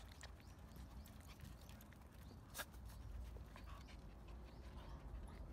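Quiet sounds of small dogs moving close to the microphone on a wooden deck: scattered light ticks and one sharp tap about two and a half seconds in, over a low steady rumble.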